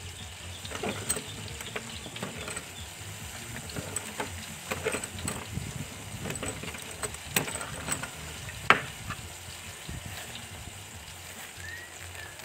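Battered banana fritters deep-frying in a large pot of hot oil: a steady sizzle with scattered sharp pops and clicks, the loudest a little past two-thirds of the way through.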